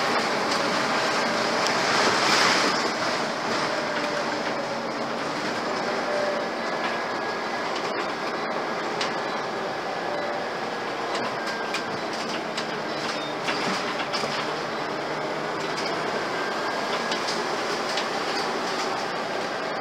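Cabin noise inside a Scania OmniCity (CN94UB) single-deck bus on the move: diesel engine running under road noise, with constant rattling of panels, seats and fittings. Incredibly loud and rattly, the sound of a knackered old bus. A brief louder surge comes about two seconds in.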